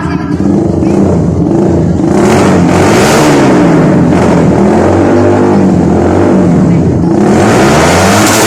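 Motorcycle engine revved up and down again and again through a loud aftermarket exhaust pipe, the pitch rising and falling in several swells, with a harsher rush near the end.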